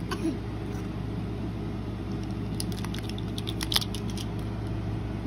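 Steady low hum of an electric fan running, with a few light clicks and taps in the middle.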